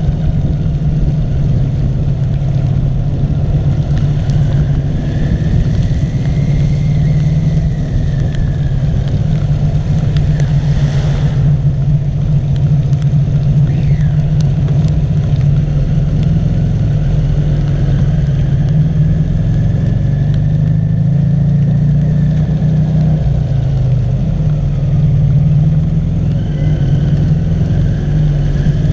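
Rewaco trike's engine running steadily as the trike rides along, a constant low drone with a faint whine that slowly rises and falls. A brief rush of noise passes about 11 seconds in.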